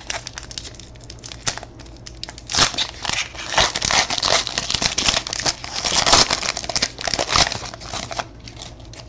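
Foil wrapper of a Panini Certified football card pack being torn open and crinkled by hand, lighter at first and a dense crackling from about two and a half seconds in until near the end.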